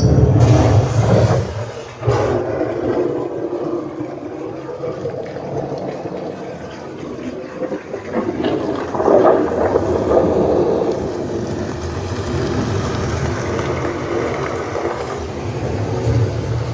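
Film soundtrack played through the Damson S Series Dolby Atmos soundbar and subwoofer with its X-Bass boost on: a loud, bass-heavy rumble with rushing noise. It is loudest at the start and swells again about nine seconds in.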